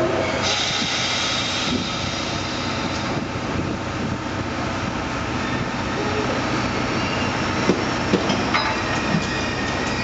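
C57 steam locomotive and tender rolling slowly backward on the rails to couple onto the coaches, with a steady hiss and rolling noise. A few sharp knocks come in the second half, and a high wheel squeal sets in near the end as the tender closes on the coaches.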